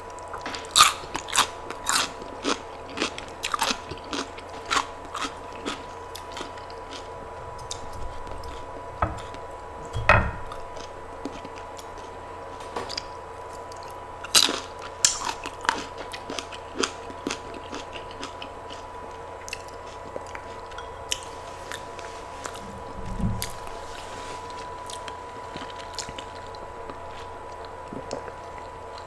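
Close-miked eating: crisp bites and chewing crunches come in clusters, thickest over the first few seconds and again about halfway through, with a couple of duller low thumps between. A faint steady tone runs underneath.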